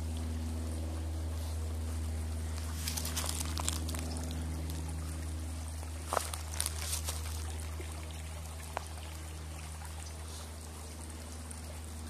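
Shallow creek water trickling over rocks, under a steady low hum, with a few light crackles about three and six seconds in.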